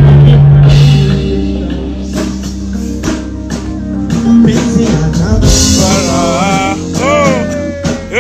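Live band music at a stage sound check: drum kit and bass playing, with a voice coming in over the last two seconds in sliding, wavering notes.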